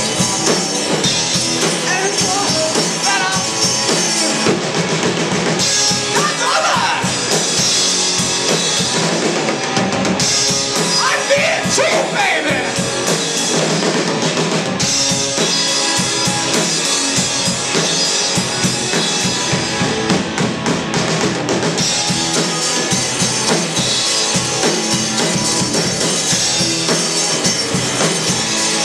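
Live rock band playing: electric guitars over a full drum kit, with the cymbals washing in and out in sections.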